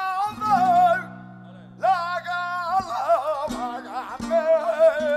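Flamenco music: a male singer's voice in long, wavering, ornamented phrases over guitar, with a few sharp percussive hits in the second half.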